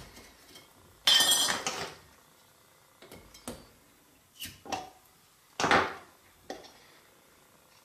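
A sealed glass jar being opened: the lid breaks loose with a loud burst of noise about a second in, followed by light clinks and knocks of glass and metal and a second short loud clatter about two-thirds of the way through.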